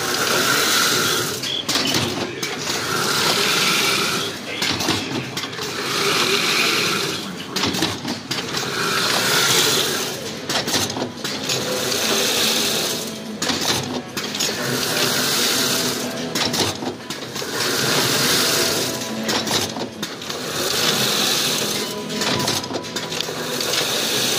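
Chain-link fence weaving machine running at full speed: a steady mechanical clatter with a hissing whir that swells and falls about every three seconds, one cycle after another as the wire spirals are woven into the mesh.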